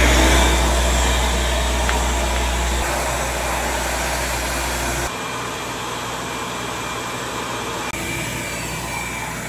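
Ridgid 15-litre, 1080 W wet/dry shop vacuum running steadily, sucking up flood water from the floor. Its tone changes abruptly about five seconds in and again near eight.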